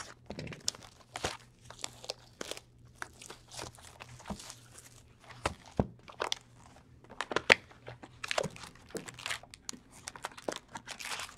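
Packaging of a sealed box of hockey cards crinkling and tearing as it is opened: a run of irregular crackles and sharp rustles.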